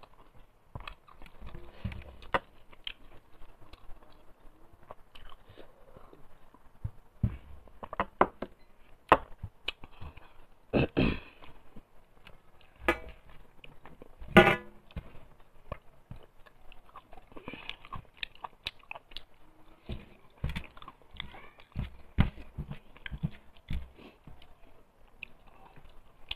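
Close-up chewing and wet mouth sounds of a person eating rice by hand, an irregular run of soft clicks and smacks, with two louder ones about eleven and fourteen seconds in.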